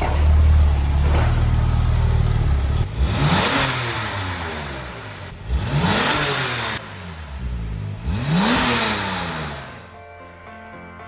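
Porsche 997 Turbo Mk1's twin-turbo flat-six on its factory exhaust: a steady low rumble, then three revs, each rising and falling in pitch, about two and a half seconds apart. Background music comes in near the end.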